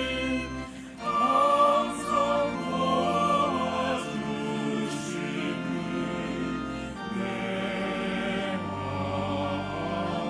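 Choir singing with organ accompaniment, the voices coming in about a second in over held low organ notes.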